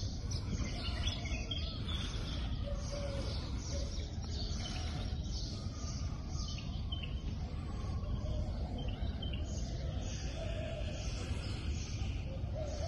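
Birds chirping in short calls over a steady low rumble of outdoor background noise.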